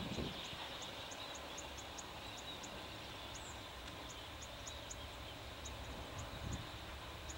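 Bean geese: a low goose call tails off at the start and a soft low call comes about six and a half seconds in, over steady background hiss with faint high ticks a few times a second.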